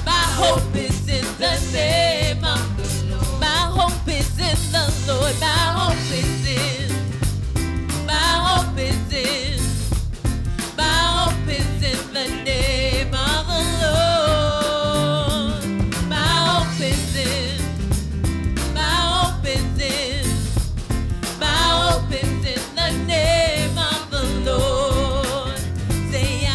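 A woman singing a gospel worship song into a microphone, with vibrato on held notes, over instrumental accompaniment with drums.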